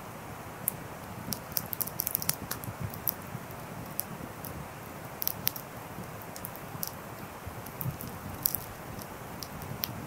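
Wood fire burning: a steady hiss with irregular sharp crackles and pops from the logs, thickest about two seconds in and again around five and eight seconds.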